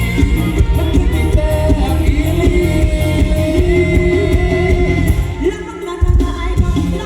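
Loud live band music from a stage show: a singer holds long, bending notes over heavy, pulsing bass and drums. The bass drops out briefly near the end, then the full band comes back in.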